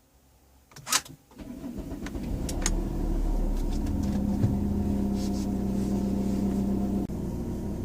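Volvo XC60 2.4 D5 five-cylinder diesel starting: a sharp click about a second in, then the engine catches and settles into a steady idle. Its under-hood rattle comes from the alternator pulley's worn bearing.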